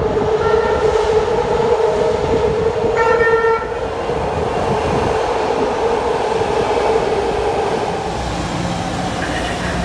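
BART train running into an underground station, its steady whine and rumble echoing off the platform as the cars come alongside. A short horn blast sounds about three seconds in.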